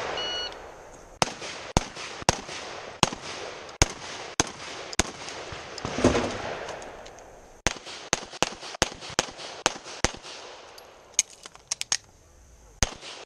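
Pistol-caliber carbine firing a string of about eight quick shots. About six seconds in there is a clatter as the carbine is dumped into a barrel. From about eight seconds a faster string of pistol shots follows, with a few more spaced shots near the end.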